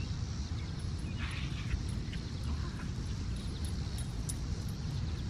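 Wind buffeting a microphone set low in the grass, a steady low rumble, with a few faint short high chirps about a second or two in.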